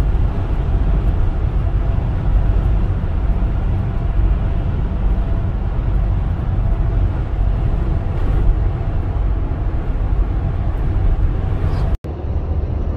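Cargo van cruising at highway speed, heard from inside the cab: a loud, steady rumble of engine and road noise with no break in pace. It cuts out for an instant near the end and resumes slightly quieter.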